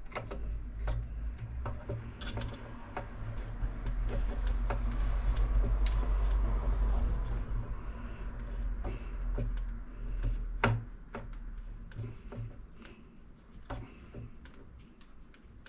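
Small screws being worked into model-kit parts with a screwdriver: scraping and rubbing, heaviest through the middle, with scattered light clicks of handled parts.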